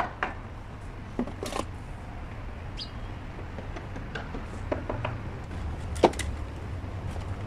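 Scattered light clicks and knocks of green PPR plastic pipe and fittings being handled and pushed together, the sharpest about six seconds in, over a steady low hum.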